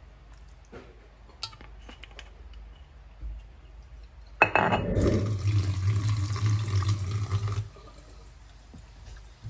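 Water poured into an aluminium wok over fish. It starts with a sharp clink about four and a half seconds in, runs steadily for about three seconds and stops suddenly. A few faint clicks come before it.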